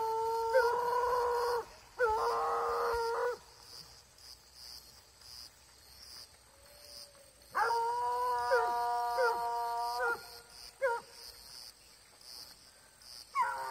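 American hunting hounds baying on a wild boar hunt, giving long, drawn-out howling bays. Two bays come in quick succession at the start, a longer one in several voices follows about eight seconds in, and short bays come near the end.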